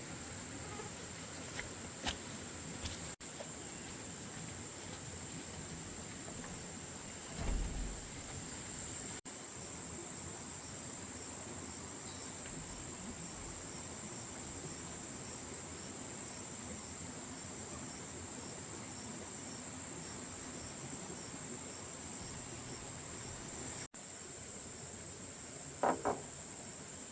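Insects chirping in a steady high-pitched chorus, with a few brief louder sounds, one about a quarter of the way in and one near the end. The sound drops out for an instant three times.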